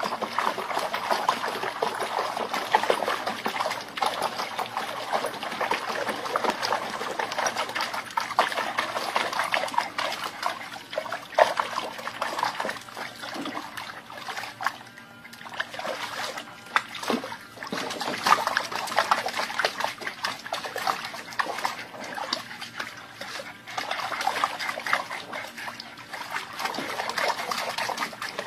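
Water splashing and trickling, irregular and continuous.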